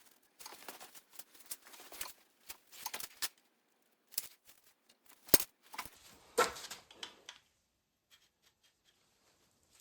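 Small clicks, taps and rustling of a thin sheet-steel plate being handled and fitted against a plastic headrest latch. A sharper click comes about five seconds in and another a second later, and the handling stops a couple of seconds before the end.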